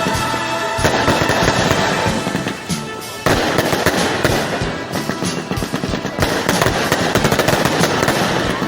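Fireworks crackling and popping in a dense, rapid stream, with a brief lull about three seconds in before the crackle starts again abruptly.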